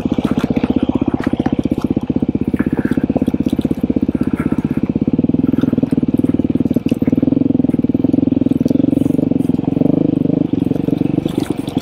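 Off-road motorcycle engine running as it rides along a dirt trail, a steady rapid pulsing beat that swells a little past the middle.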